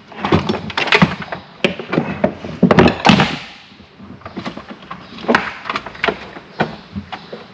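Knocks and thunks of a starboard mounting board, fitted with battery switches and distribution panels, being lowered and worked into place inside a boat's compartment, with wires and fittings clattering. A busy run of knocks fills the first three seconds or so, then single knocks come every second or so.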